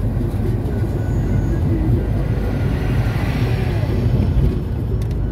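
Road noise inside a moving car on a highway: engine and tyres running steadily, with a swell of noise about three seconds in as a lorry is passed alongside.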